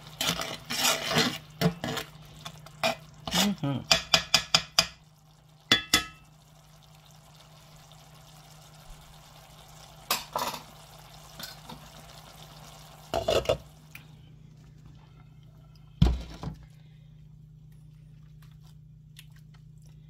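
Metal slotted spatula scraping and clinking against a cast iron pan as tomato sauce is stirred, ending in a quick run of knocks. After that come a few scattered clinks over a steady low hum.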